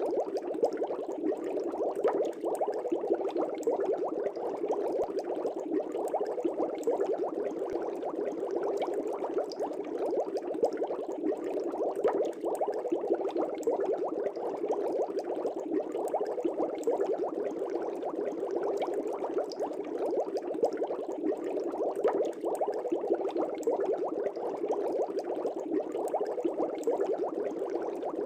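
Aquarium air bubbler bubbling steadily in a fish tank, a dense stream of small bubbles popping at the surface.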